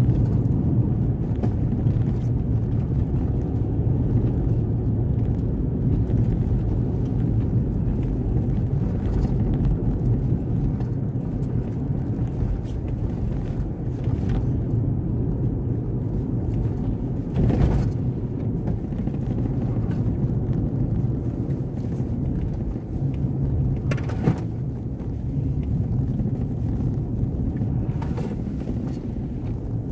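Car cabin noise while driving on a wet road: a steady low rumble of engine and tyres. There is a brief thump a little over halfway through, and a couple of fainter knocks later.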